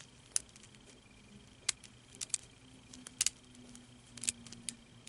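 A world's-smallest micro Rubik's cube being turned by hand: scattered sharp plastic clicks as its layers turn, at uneven intervals.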